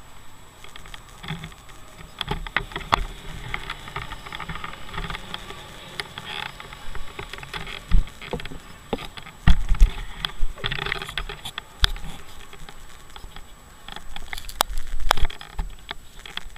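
Handling noise from an action camera being moved about by hand: irregular knocks, clicks and rubbing, with several louder thumps around the middle and near the end.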